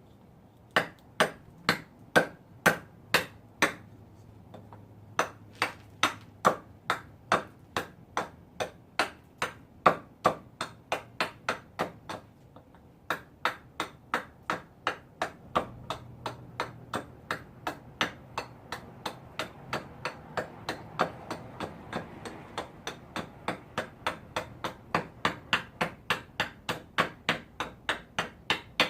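A long run of sharp strikes, about two a second, each with a short ring, pausing briefly twice.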